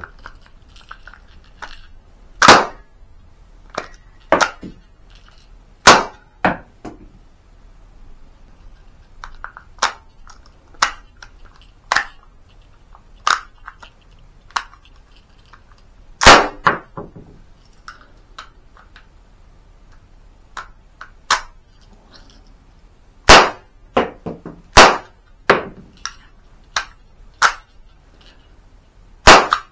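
A！CTION C96 Red9 cap-firing model gun going off in several sharp, irregularly spaced cracks, with quieter metal clicks and clacks of the bolt and hammer between shots as the gun is worked by hand. The bolt is catching and has to be helped along, which the shooter puts down to progressing wear on the bolt.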